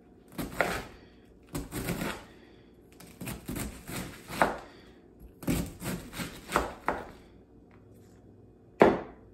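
Chef's knife slicing through a head of cabbage onto a cutting board: quick crunchy strokes in short clusters, some several to a second. Near the end comes a single sharp knock, the loudest sound.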